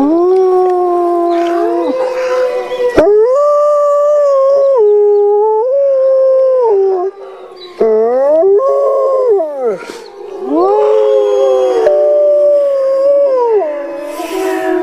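Wolves howling: long, overlapping howls that glide up and down in pitch, more than one voice at a time, with a short break about halfway through.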